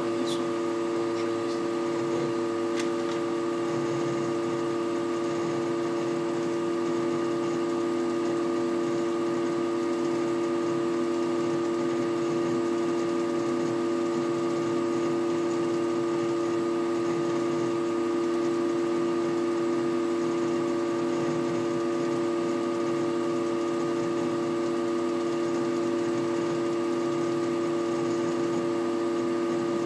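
Desktop computer system unit humming steadily, picked up through a camera resting on its case: a constant drone made of several fixed tones, with a faint uneven crackle underneath. It is the strange hum and crackling the PC makes when it starts freezing under browser load.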